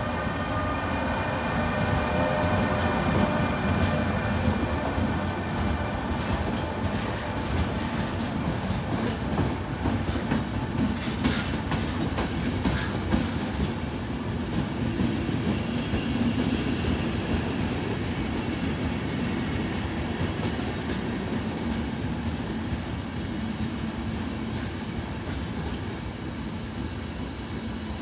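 Passenger train hauled by an E402B electric locomotive rolling steadily past along the platform, its coaches rumbling over the track. Several steady tones from the locomotive hum at first and fade as it goes by. A few sharp clicks come from the wheels near the middle.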